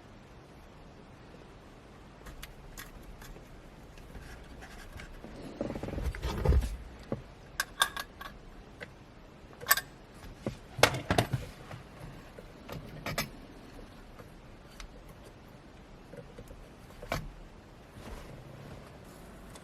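Hand work on parts: scattered clicks, knocks and scrapes, with a heavier low thump about six seconds in and a cluster of sharp clicks around the middle.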